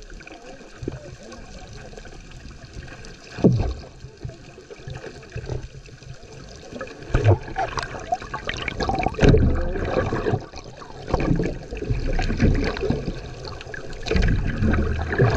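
Muffled water sloshing and gurgling around an underwater camera held just below the sea surface, with irregular thumps and splashes that grow busier in the second half.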